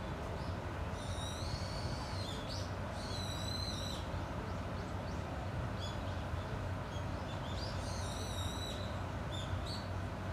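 A bird calling: three longer, high, harsh calls spaced a few seconds apart, with short high notes between them, over a steady low background hum.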